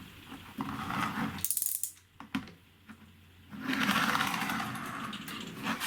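3D-printed wind-up car's plastic gear train whirring and rattling as the spring runs down, its wheels slipping. There is a quick run of sharp clicks about a second and a half in, a short lull, then a steady whirr through the second half.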